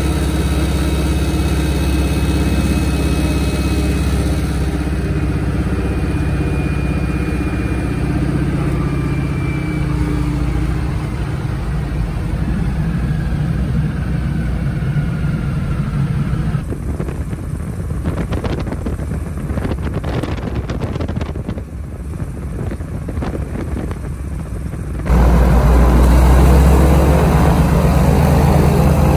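Pratt & Whitney R-1340 radial engine of a Noorduyn Norseman running at low power after landing, heard from inside the cabin. Its sound turns rougher and thinner a little past halfway, then jumps suddenly louder and heavier near the end.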